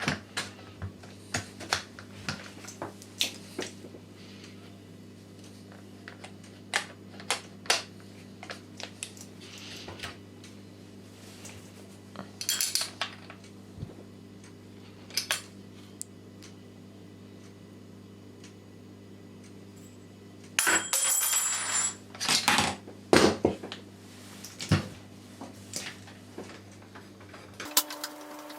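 Small metal parts and hand tools clinking, tapping and clattering in scattered knocks, with a short scraping noise about three-quarters of the way through, over a steady low hum.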